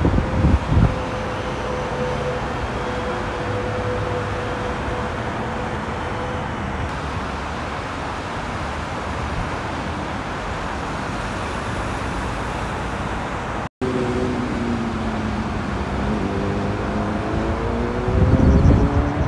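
Steady roar of dense freeway traffic, tyres and engines of cars and trucks passing. After a brief dropout about two-thirds of the way through, an engine tone rises steadily in pitch, and near the end wind buffets the microphone.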